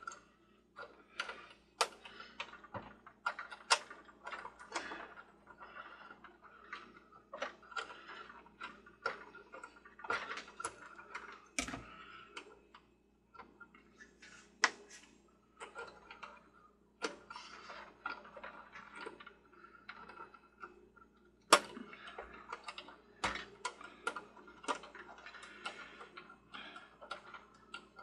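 Irregular light clicks and taps from hands handling small plastic carousel parts and a metal nut being worked onto the rotor shaft, with a few sharper knocks scattered through.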